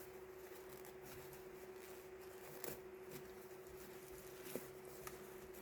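Near silence: faint room tone with a low steady hum and two soft clicks, about two and a half and four and a half seconds in.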